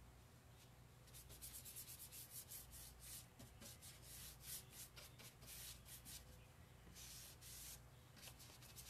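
Faint, quick rubbing strokes of a cloth rag wiping dark furniture wax over a painted wooden cabinet door, with one longer stroke near the end. A low, steady hum runs underneath.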